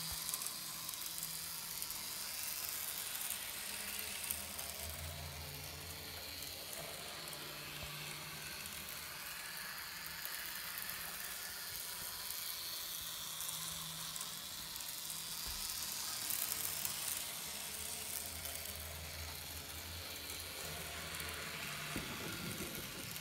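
Small-scale model train running around its track: a steady noise of the locomotive's motor and wheels on the rails, with a low hum that grows louder and fades twice as it comes closer.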